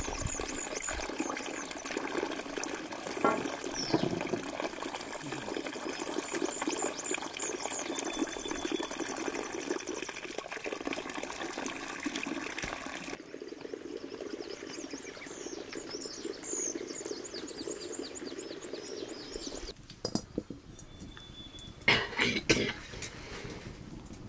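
Steady rushing of running or splashing water, whose higher part drops away abruptly about halfway through. A few sharp knocks come near the end.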